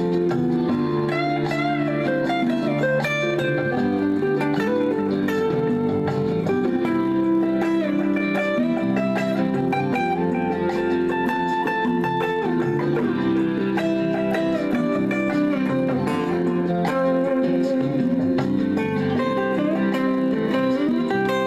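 A guitar melody played over a pre-recorded backing track, with sustained notes that bend in pitch.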